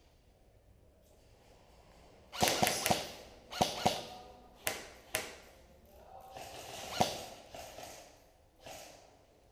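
Airsoft guns firing irregular single shots, each a sharp snap with a short swishing burst. The shots start about two seconds in and come in a loose string of a dozen or so, with rustling between them.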